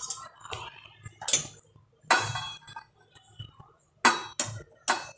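Stainless steel plate and spoon knocking and scraping against a steel mixing bowl as shredded cabbage and carrot are pushed off the plate into it. Several sharp metal clinks, spread unevenly with short quiet gaps between them.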